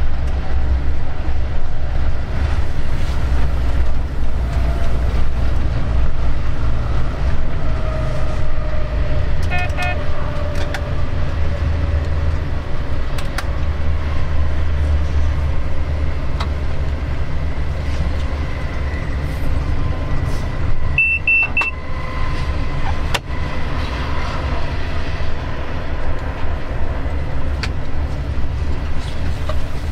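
Diesel locomotive running under way, heard from its cab: a steady low engine drone with wheel and rail noise. A short toot about ten seconds in, and a brief high double beep a little past the twenty-second mark.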